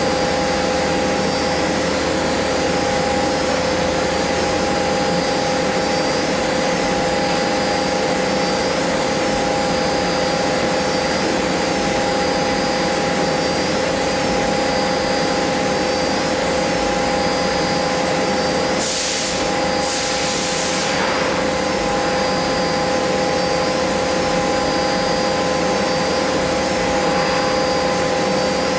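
CNC machining center spindle running at speed as a small end mill profiles a small clamped block: a steady whine with several fixed tones over a constant rushing noise. About two-thirds of the way through come two short bursts of hiss.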